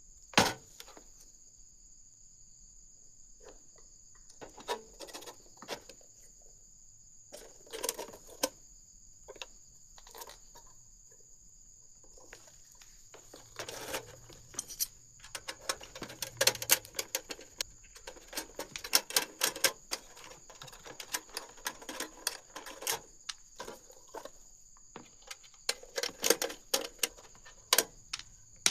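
Irregular clicks, taps and rattles of small hard parts being handled, sparse at first and coming thick and fast from about halfway through, over a faint steady high-pitched whine.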